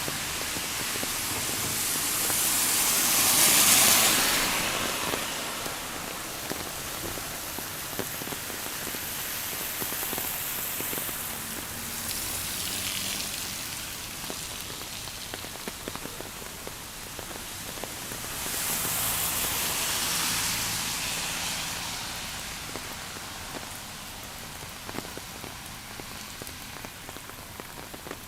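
Rain falling with a steady patter of drops. Three times it swells into a louder hiss for a few seconds and fades back, and near the end single drops tick more distinctly.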